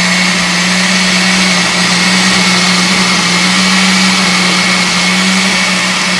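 Countertop blender running at one steady speed, puréeing avocado with evaporated and condensed milk in a full jar: a loud, even motor hum under a whirring hiss.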